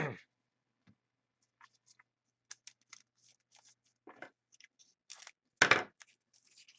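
Hockey trading cards and their foil pack wrappers being handled: scattered light clicks and rustles, with a short, louder tearing crinkle a little over five and a half seconds in.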